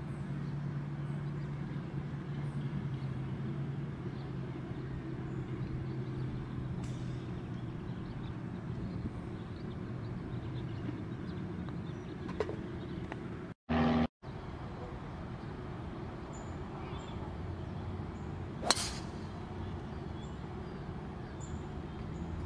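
Steady low hum of distant traffic over open ground. A putter taps a golf ball with a faint click about halfway through, and a sharper click comes about three quarters of the way in. A short electronic blip between two brief dropouts falls just after the first click.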